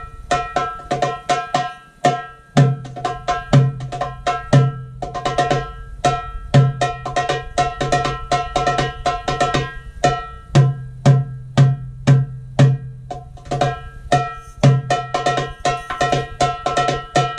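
Darbuka played live as a solo: deep, accented doum strokes at irregular intervals, with quick runs of high, ringing tek-ka strokes filling the gaps between them.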